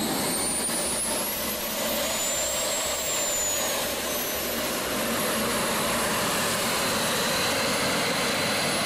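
Small jet turbines of a large radio-controlled Airbus A380 model running as it taxis: a steady rush of jet noise with high whistling whines that slide slowly up and down in pitch.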